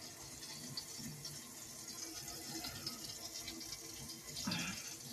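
Water running steadily from a newly installed faucet into the sink, a test run to check the new supply lines and shut-off valves for leaks.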